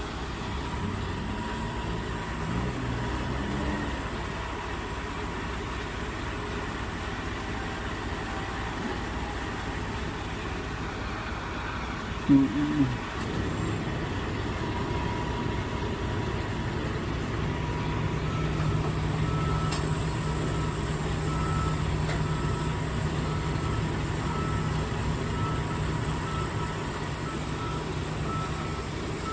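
A heavy vehicle's engine running with a steady low rumble. About twelve seconds in comes a brief, loud two-part pitched sound. From about two-thirds of the way in, a reversing alarm beeps about once a second.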